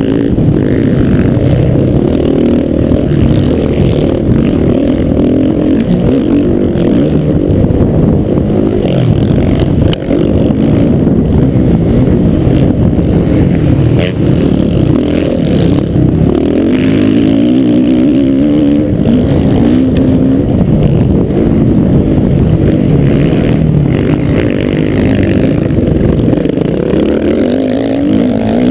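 Motocross bike engine racing hard on a dirt track, heard from the rider's helmet camera, its pitch rising and falling over and over as the throttle opens and closes through turns and gear changes, with a brief drop in loudness about ten seconds in.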